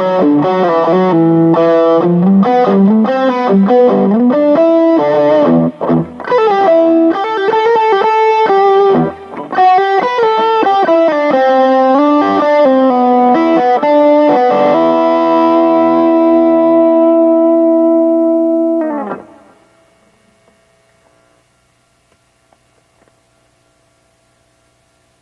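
Yamaha Studio Lord SL-500 electric guitar played with distortion: runs of single notes and chords, then a final chord left to ring for several seconds before it is muted about 19 seconds in. Only a faint amplifier hum remains after that.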